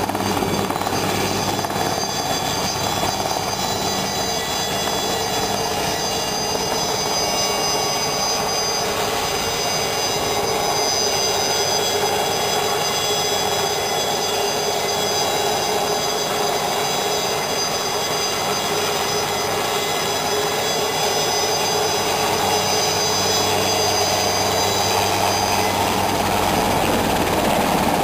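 Alouette III helicopter hovering close overhead as it comes in to land on a ship's flight deck. Its turbine engine gives a steady high whine over the dense rotor noise, growing slightly louder near the end as it draws nearer.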